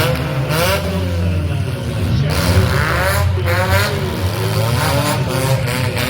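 Demolition derby car engines running loud and revving, the pitch rising and falling several times over a steady low drone, with a rapid run of sharp crackles near the end.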